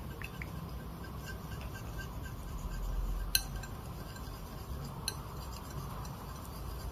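Paintbrush mixing paint in a palette dish: faint scraping and small ticks, with two sharp clinks of the brush against the dish, the louder about halfway in and a lighter one about three-quarters of the way through.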